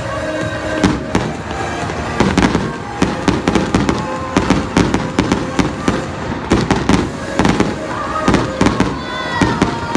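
Fireworks going off in rapid, irregular succession, many sharp bangs and crackles, with loud show music playing underneath.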